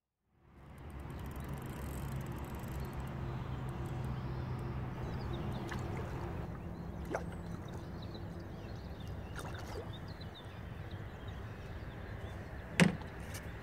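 Open-air ambience from a small boat on a lake: a steady low rumble with a faint hum, a few faint clicks, and one sharp knock near the end.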